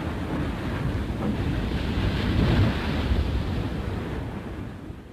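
Rough sea: waves breaking and water rushing, with wind, a steady rushing noise that fades out over the last second or two.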